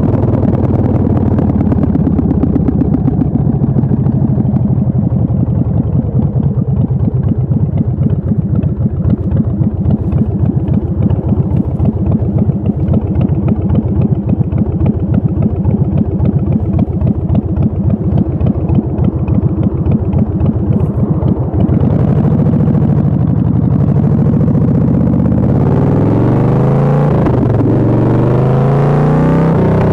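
2004 Big Dog Ridgeback chopper's 1750 cc V-twin engine, heard from the saddle, loping at low revs with distinct firing pulses. About two-thirds of the way through it opens up and accelerates, rising in pitch as it shifts up through the gears.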